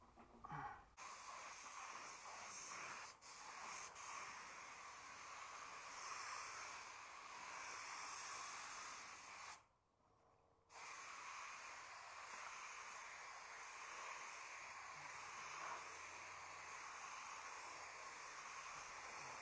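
Compressed-air suction-feed spray gun with a cup beneath it, hissing steadily as it sprays paint, with brief breaks where the trigger is let off and one gap of about a second near the middle.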